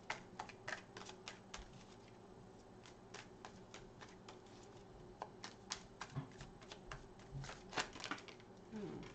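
A deck of tarot cards being shuffled and handled: a run of irregular soft snaps and clicks, thickest near the start and again in the second half.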